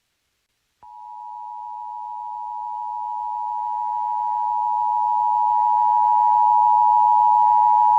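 Emergency Alert System two-tone attention signal: two steady tones sounding together near 850 and 960 Hz. It starts about a second in and grows steadily louder. It is the signal that announces an emergency alert message.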